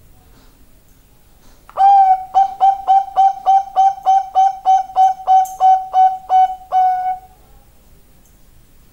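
Bangkok-bred zebra dove (perkutut) cooing: a fast run of about sixteen short notes on one pitch, each scooping up at its start, ending on a longer note after about five seconds.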